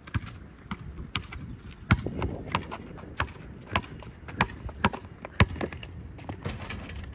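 Basketball being dribbled, a sharp bounce roughly every half-second to two-thirds of a second, with a few louder hits among them.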